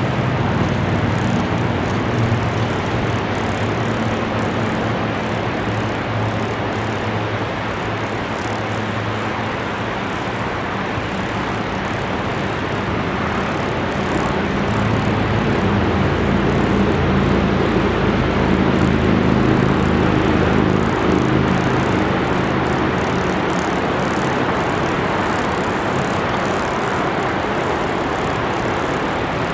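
Narrow-gauge 2-6-2 steam locomotive and its excursion train running: a loud, steady mechanical rumble and hiss.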